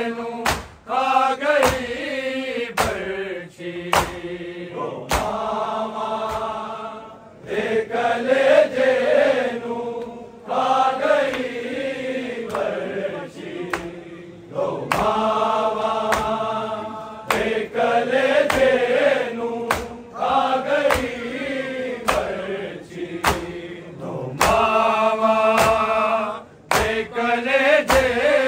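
A group of male voices chanting a Punjabi noha, a Shia mourning lament, in long sung phrases with short breaks between them, over regular sharp beats.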